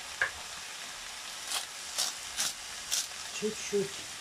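Shredded cabbage sizzling steadily in a frying pan, with four quick shaking sounds about half a second apart in the middle as pepper is shaken in.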